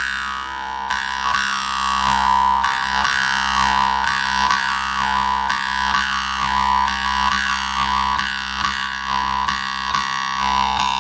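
Khomus, the Yakut metal jaw harp, played into a microphone: a steady buzzing drone with a wavering overtone melody shifting above it, after a run of fast plucked strokes has just stopped.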